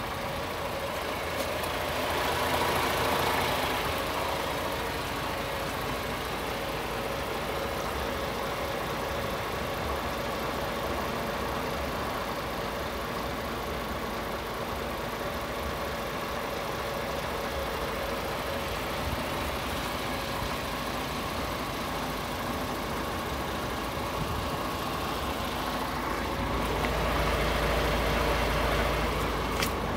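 A DAF CF440's Paccar 440 bhp Euro 6 diesel engine idling steadily. The low rumble grows louder and deeper for a few seconds near the end.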